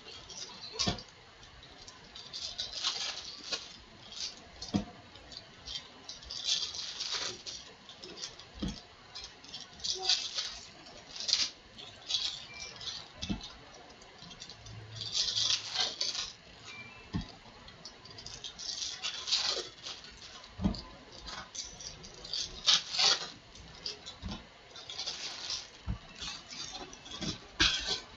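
Crinkly foil wrappers of Topps baseball card packs being torn open, with the stiff cards inside shuffled and tapped down on a cloth mat. It comes in irregular bursts of rustling a second or two apart, with occasional soft taps.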